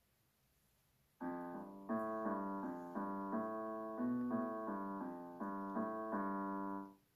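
SouidMy G-310W digital piano playing back a performance recorded on it, in its piano voice through its built-in speakers. A run of piano notes and chords at a steady pace starts about a second in and stops abruptly near the end.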